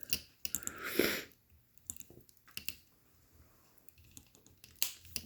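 Small hand tools and wires being handled at close range on a workbench: scattered soft clicks and a brief rustle about a second in, then two sharp clicks near the end, like flush cutters nipping wire.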